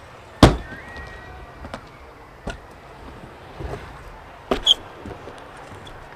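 Stunt scooter landing hard on a ramp with a loud thud about half a second in, followed by scattered knocks and clatters of the deck and wheels on the ramp, and a sharp double hit with a brief squeak near the end.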